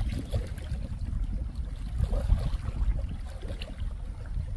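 Wind buffeting the microphone outdoors: a low, uneven rumble that swells and fades.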